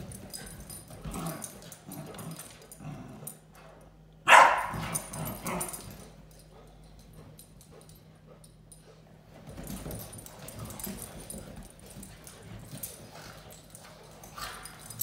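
Two goldendoodles, a mother and her puppy, play-fighting with scuffling dog noises. One loud bark comes about four seconds in, followed by a few smaller ones. After a quiet spell, the scuffling picks up again.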